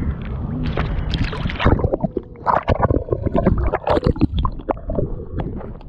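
Water sloshing, splashing and gurgling against a camera held at the surface beside a boat. From about two seconds in the sound breaks into irregular splashes and turns muffled as the camera goes under.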